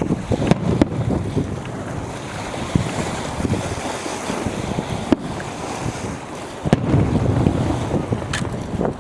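Strong wind buffeting the microphone with a low rumble, broken by a few sharp cracks of fireworks bursting; the rumble grows louder about seven seconds in.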